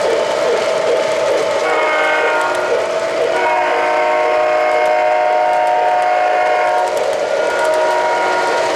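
O-gauge model freight train rolling on three-rail track with a steady running rumble. The locomotive's onboard sound system sounds a long multi-note whistle, starting about two seconds in and held for about five seconds.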